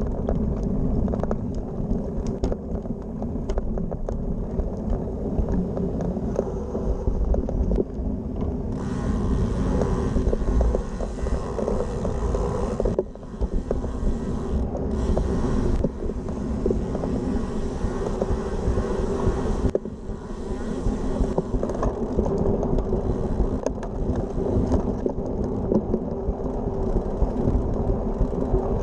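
Wind buffeting the bike-mounted camera's microphone, over the rumble of a road bike's tyres rolling along a path. About nine seconds in, the noise turns brighter and hissier for about eleven seconds as the tyres cross brick paving, then settles back to a low rumble.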